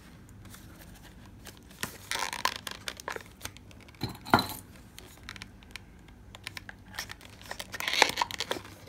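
Small cardboard box being handled and prised open: scattered rustles, scrapes and small clicks of paperboard, with louder bursts about two, four and eight seconds in.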